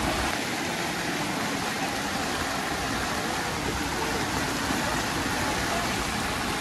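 Floodwater flowing, a steady rushing noise.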